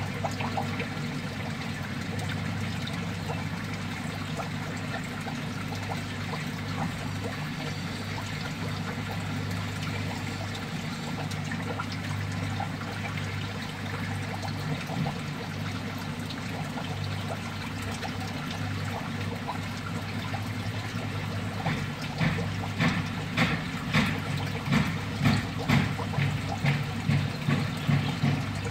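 Water trickling and pouring into a crab-fattening tank over a steady low hum. Near the end comes a run of louder pulses in the water, about two a second.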